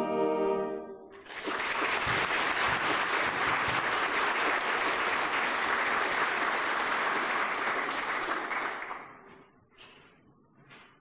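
A held musical chord ends about a second in, then an audience applauds steadily for about eight seconds and dies away.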